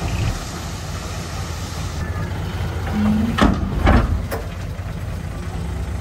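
Heavy diesel earthmoving machinery running with a steady low rumble. Just past halfway there is a short steady tone, then a few sharp metallic knocks.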